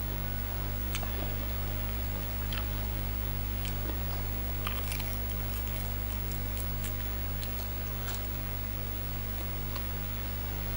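Close-miked eating: wraps of fresh leaves and grilled fish being handled and bitten, giving scattered crisp crunches and mouth clicks, thickest about halfway through. A steady low hum runs underneath.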